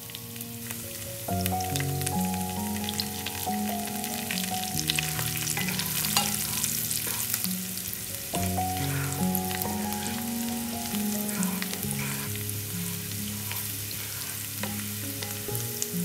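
Chopped garlic sizzling and crackling in hot oil in a frying pan while a wooden spatula stirs it, with instrumental background music under it.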